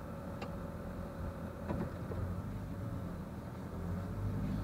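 Truck engine running at low speed, heard from inside the cab while reversing into a parking spot, with a couple of faint clicks.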